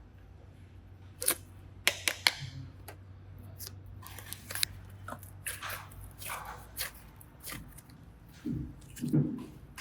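Scattered sharp clicks and soft rustling of small objects being handled, with two short, louder, lower sounds near the end.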